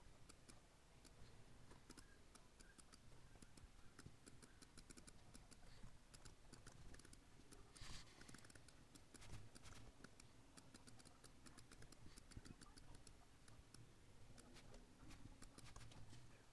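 Near silence broken by faint, irregular clicks of a laptop keyboard and trackpad, with one slightly louder click about halfway through.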